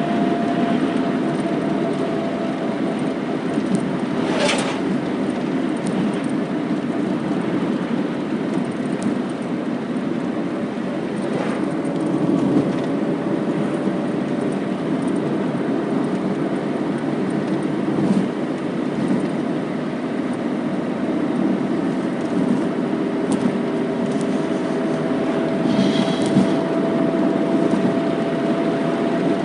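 Car being driven, heard from inside the cabin: steady engine and road noise with a held tone that drifts slightly in pitch. There are short knocks about four and eleven seconds in.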